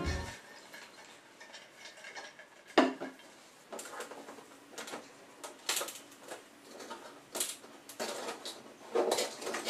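Handling noises from a boxed tabletop easel being moved about: scattered light taps and clatters, one sharp knock about three seconds in, and a cluster of rustling knocks near the end.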